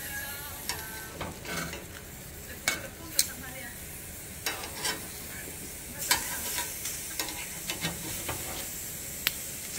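Metal tongs clicking and scraping against a cast-iron griddle as onion pieces and green peppers are turned while they roast, over a steady light sizzle. The clicks come irregularly, about a dozen of them, the sharpest a little over three seconds in and about six seconds in.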